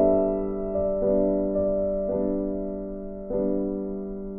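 Background piano music: slow, gentle chords, each struck and left to ring and fade before the next.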